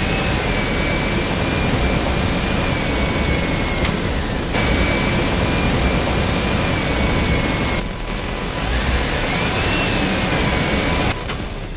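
A homemade RC truck's electric drive motors and gearbox running under an 80 kg gravel load, giving a steady high whine over a dense grinding noise. The whine rises and falls with the throttle and drops out briefly twice.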